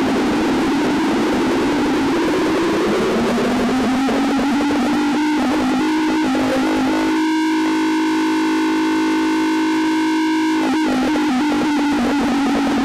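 Harsh, heavily distorted synthesizer drone over loud noise, in the style of a fake emergency-alert alarm. Its low pitch slides slowly upward over the first few seconds and then holds steady, ringing clearest for a few seconds past the middle.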